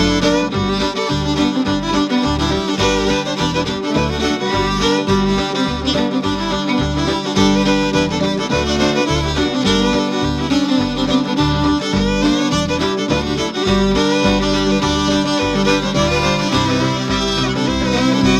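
Background music led by a fiddle, with a steady beat in the low end.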